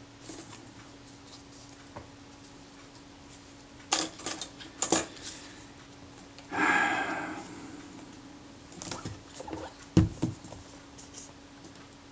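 Hands handling a Kodak Retina IIIS camera while fitting its leatherette: a few sharp clicks and taps about four seconds in, a rustling scrape about six and a half seconds in, and a knock about ten seconds in, the loudest, as the camera is set down or turned over. A faint steady hum lies under it.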